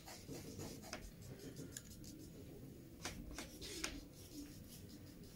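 Pencil lead scratching faintly on drawing paper in short strokes, a few near one second in and a quick run of them around three to four seconds in.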